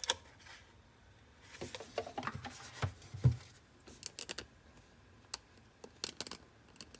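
Desk handling sounds: a USB receiver clicking into the mini PC's USB port right at the start, then a knock a little over three seconds in as the mini PC is set down on the desk, with scattered light clicks and knocks from the hardware being handled.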